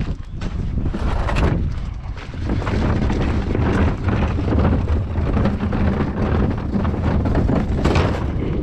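Wind rumbling on the microphone, with scattered knocks and rustles from rummaging through a rubbish bin.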